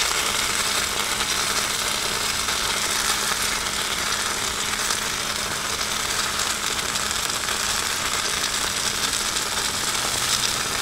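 Okonomiyaki sizzling on a hot iron griddle plate: a steady frying hiss with a faint low hum underneath.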